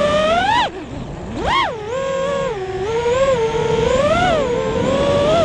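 FPV quadcopter's brushless motors and propellers whining, the pitch rising and falling with the throttle. There is a sharp climb then a cut just after half a second in, a steep surge about a second later, then smaller swells, heard from a camera mounted on the quad.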